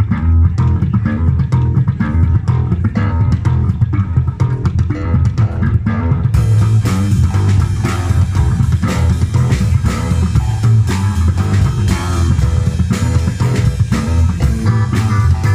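Live instrumental band jam: a prominent bass guitar line with guitar and a drum kit keeping a steady beat.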